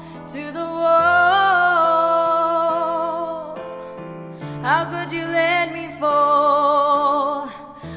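A song playing back: a woman singing long held notes with vibrato over a sustained accompaniment, a phrase ending about halfway through and a new one starting soon after.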